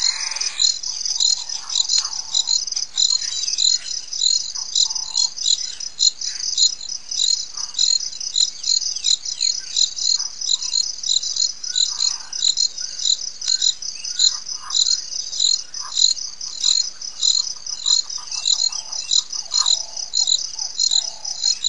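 Steady, loud insect chirping: a high pulsing trill repeating about three times a second without a break. Faint bird calls sound underneath, a few short repeated notes near the end.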